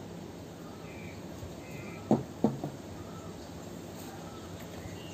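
Birds calling over a steady low background hum: two short, loud, harsh calls about two seconds in, with a smaller one just after, and a few faint high chirps.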